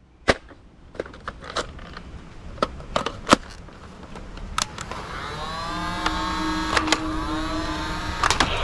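Several sharp plastic clicks as a toy blaster is handled, then its small battery-powered electric motor whirs up about halfway through, with a whine that rises in pitch and holds.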